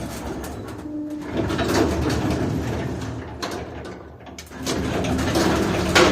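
Old Soviet Samarkand-built passenger lift (1980) creaking and rattling during a ride, in two surges of squeaking and mechanical noise.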